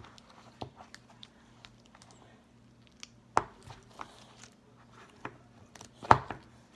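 Slime squished and worked by hand, giving irregular sticky clicks and small pops, with a louder snap about three and a half seconds in and another near the end.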